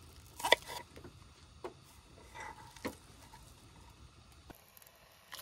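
Kitchen knife slicing green onion on a wooden board: a few crisp cuts, roughly one a second, the first the loudest.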